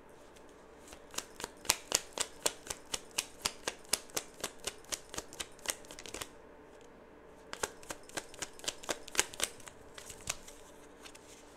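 A deck of tarot cards being shuffled by hand: a run of crisp card slaps about four a second, a pause of about a second and a half, then a second run of slaps.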